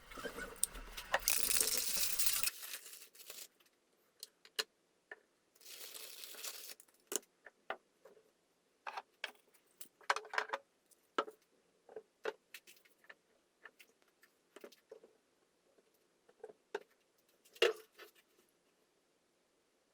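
Small metal parts of a Zippo lighter clicking and clinking irregularly as they are handled. A hissing noise runs for the first couple of seconds and comes back briefly about six seconds in.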